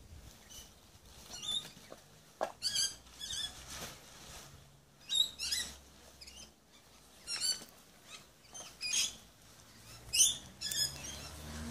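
Nylon fabric of a pop-up shower tent rustling and swishing in short bursts every second or two as it is twisted and folded down, with a few light clicks from its frame hoops.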